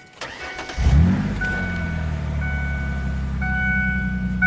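A pickup truck's engine starting about a second in, revving up briefly, then settling to a steady idle. A thin high electronic warning tone sounds on and off over the idle.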